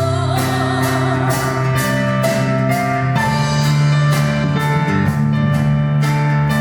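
Live band music: held chords over a drum kit keeping a steady beat, with a wavering held note in the first second or so.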